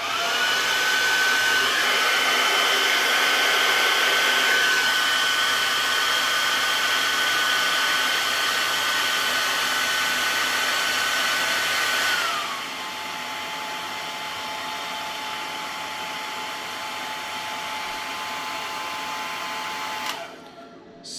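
Hairdryer running on its highest setting: a steady rush of air with a motor whine. About twelve seconds in, the whine drops lower and the sound gets quieter. It is switched off near the end.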